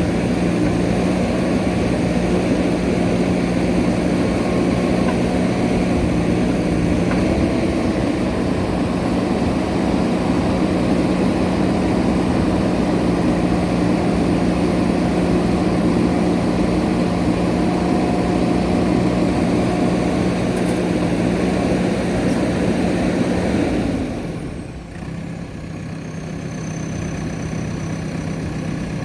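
JCB backhoe loader's diesel engine running steadily at working revs, then easing off to a quieter, lower idle about 24 seconds in.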